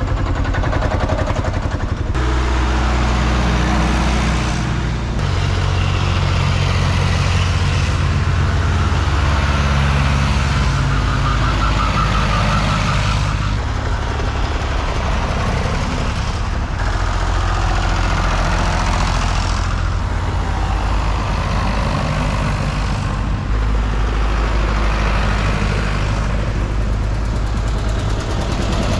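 Vintage tractor engines running as several old tractors drive past one after another, each a steady low engine note that changes as the next tractor comes by.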